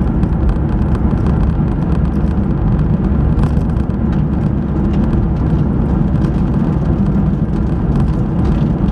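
Steady rumble of engine and tyres on the road, heard from inside a moving car's cabin.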